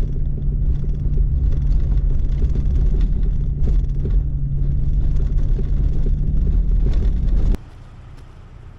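A Toyota Tacoma pickup driving on a rough dirt road: a steady engine drone over a dense low tyre rumble, with scattered short knocks from the bumps. It cuts off suddenly a little over a second before the end, leaving a much quieter low hum.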